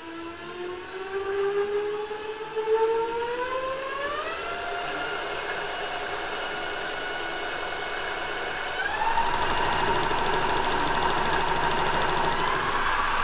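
Rear hub motor of a chopper e-bike spinning its free wheel up to high speed: a motor whine that climbs steadily in pitch for the first four seconds, then jumps higher in steps about nine and twelve seconds in, with a steady high whistle above it.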